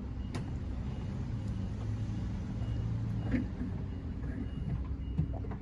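Low steady rumble of a motor vehicle running, a little stronger in the middle, with a few faint clicks as the plastic clips of a door handle are worked free.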